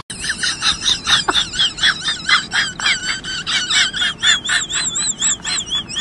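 Golden retriever vocalizing in rapid high-pitched whining yips, about four or five a second, that turn into longer warbling whines near the end.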